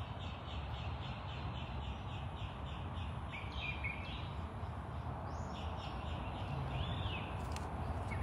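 Birds calling: a rapid run of short high chirps, about four a second, and a couple of longer high calls, over a steady low rumble.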